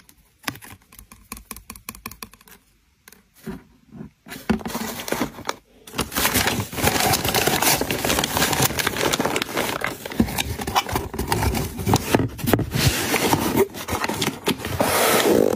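Scattered light taps and clicks as items are set into a cardboard box. Then, from about four seconds in, kraft paper crinkling and rustling, which becomes continuous from about six seconds in as the paper is tucked into the box.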